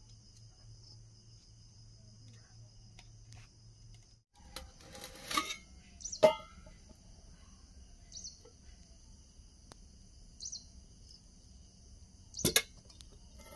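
Crickets chirring steadily in the background, with rustling and a sharp metallic clink that rings briefly about six seconds in as the lid of a steel pot is handled. Another sharp knock comes near the end.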